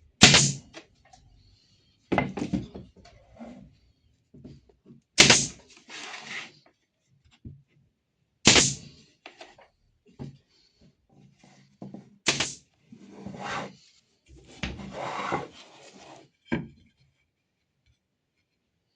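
Wooden pieces being knocked and handled: four sharp knocks a few seconds apart, each followed by rubbing and scraping of wood on wood, with a smaller knock near the end.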